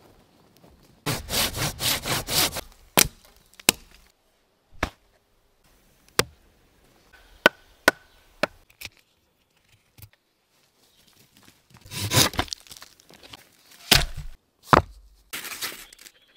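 Wood being chopped: a quick run of about half a dozen sharp strokes near the start, then scattered single knocks, and another burst of strokes near the end.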